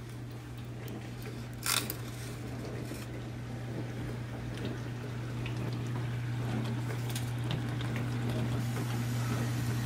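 Aluminium foil crinkling and a serving utensil scraping and clicking as a baked salmon-and-crab-stuffing portion is lifted out of the foil, over a steady low hum. One sharp crackle about two seconds in is the loudest sound.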